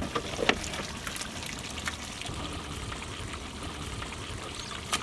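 Mutton and watery gravy simmering in a large aluminium cooking pot: a steady liquid bubbling noise with a few light clicks.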